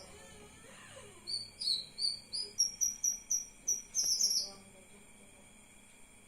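Cucak kinoy bird calling: a quick run of about eight short, sharp, high chirps over some three seconds, then it stops. A steady high insect-like drone continues underneath.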